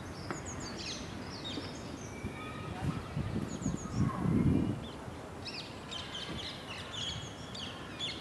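Birds chirping and calling, many short high calls scattered throughout and thickest in the second half, with a low rumble that swells and fades about four seconds in.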